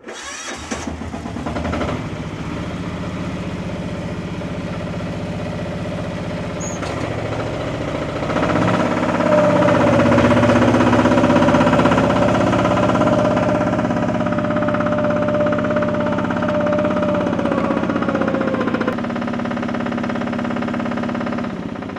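Small diesel engine (about 9–10 hp) of a compact yard loader starts and runs in the cold. From about nine seconds in it gets louder and a steady whine holds for some ten seconds, then stops suddenly. This is the hydraulic pump working against cold, thick hydraulic oil, which leaves the engine struggling.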